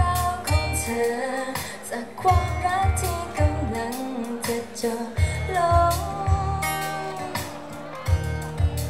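Women singing a pop song into handheld microphones over a backing track with a steady drum beat and bass.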